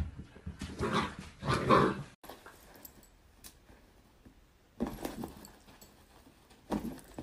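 Husky giving two drawn-out growling vocalizations, about a second in and again just before two seconds. Fainter, irregular sounds follow.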